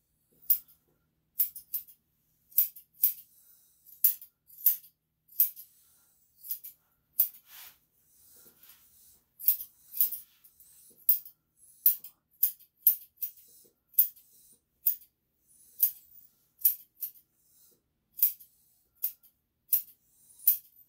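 Grooming scissors snipping through the long hair of a dog's tail in short, sharp cuts, irregularly spaced at about one or two a second.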